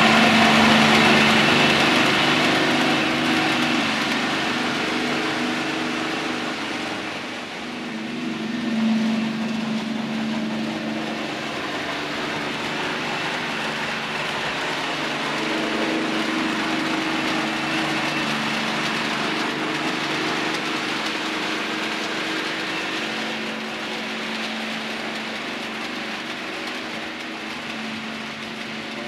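Model trains running on a layout: a steady diesel engine drone from a DCC sound-fitted model Deltic locomotive, over the rumble of model wheels on the track. The track noise is loudest in the first few seconds, as a train passes close.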